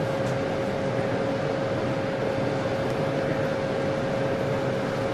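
Steady hum and rushing noise of a train standing at the platform, with a constant mid-pitched whine running through it.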